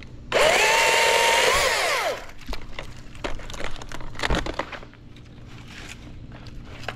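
Echo chainsaw revving hard for about two seconds, its pitch climbing and then falling back to a low idle. Scattered cracks and knocks of dead branches follow.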